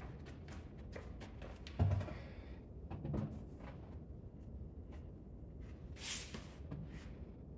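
A few scattered clunks and knocks, the loudest a dull thump about two seconds in and another just after three seconds, with a brief hiss near six seconds.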